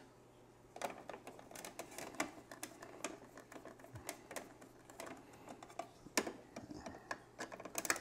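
Screwdriver backing out the screws on top of a Keurig B70 coffee maker's plastic housing: a run of faint, irregular clicks and ticks.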